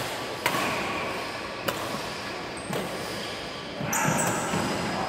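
Badminton rally: a shuttlecock struck by racquets, a few sharp pops about a second apart, ringing in the echo of a large hall.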